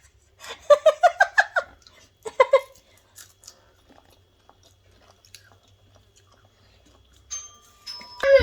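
A short run of laughter, then a pause filled with quiet chewing and small clicks of people eating with their hands. Near the end a thin, steady electronic tone starts and a voice breaks in.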